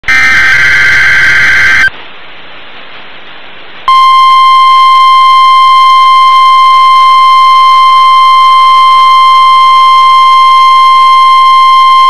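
NOAA Weather Radio required weekly test: a loud screeching burst of digital SAME header data for about two seconds, a pause of radio hiss, then the steady 1050 Hz weather radio warning alarm tone starting about four seconds in.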